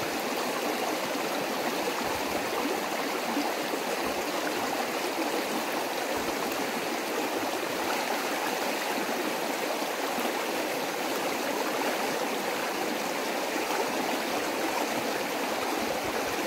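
Shallow stream flowing fast over a stony bed: a steady rush of running water.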